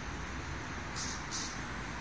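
Steady outdoor background hiss with a low rumble, and two short, high, scratchy sounds in quick succession about a second in.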